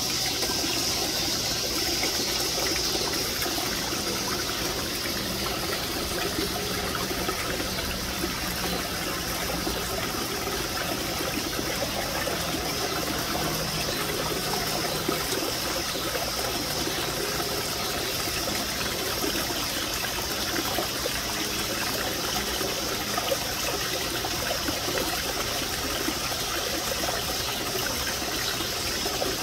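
Water running and trickling steadily over rocks in a small garden water feature, a constant splashing flow.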